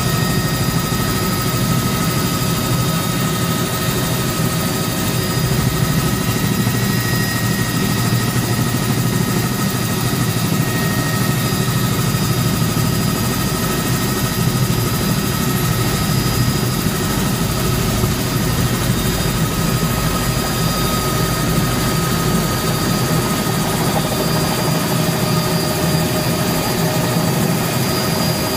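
Helicopter engine and rotor heard from inside the cabin during the approach and landing: a steady, loud rotor drone with a constant high whine over it.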